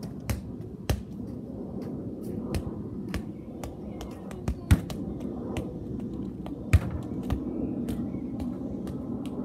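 Irregular sharp taps and knocks, with two louder thuds about four and a half and seven seconds in, over a steady low outdoor rumble.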